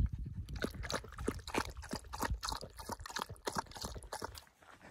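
Water splashing in a quick run of small splashes, about three or four a second, over a low rumble that fades out near the end.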